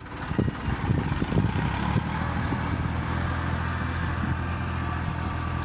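Tractor diesel engines running steadily under load while ploughing a field, with low thumps through the first two seconds.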